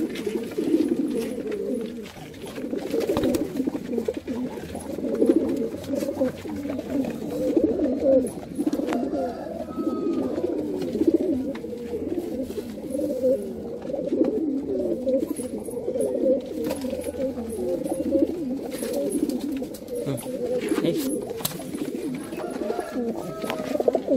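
Several Madrasi fancy pigeons cooing continuously, their calls overlapping into a steady warbling chorus, with a few sharp clicks.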